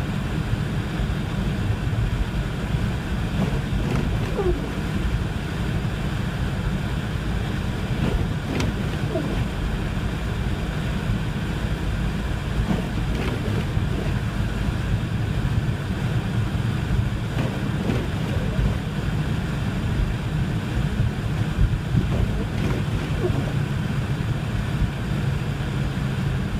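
Blizzard wind buffeting the microphone: a steady low rumble that flutters in loudness, with a few faint squeaks.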